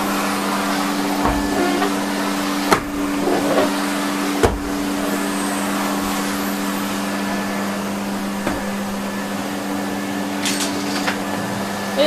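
Numatic Hetty tub vacuum cleaner running with a steady motor hum as its floor tool is pushed over a laminate floor. Two sharp knocks come about 3 and 4.5 seconds in, with a lighter one near the end.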